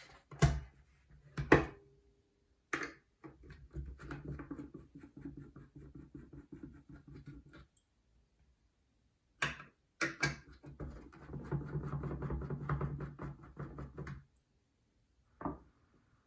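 Bench work on an RC starter box: a few sharp knocks of tools and plastic parts being handled or set down. There are also two stretches of rapid fine ticking, each a few seconds long, as screws are undone to take off the front cover.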